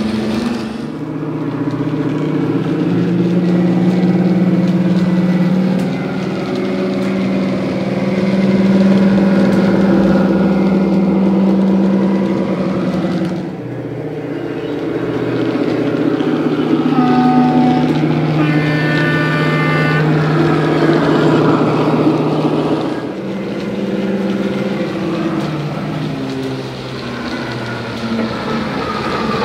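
DCC sound decoder in an OO-gauge Deltic model playing Napier Deltic diesel engine sound through a small enclosed speaker. The engine drone runs steadily and its note shifts a couple of times. A short high-pitched tone sounds about two-thirds of the way in.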